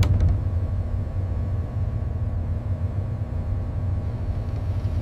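Steady low rumble of heavy machinery, with a sharp knock right at the start.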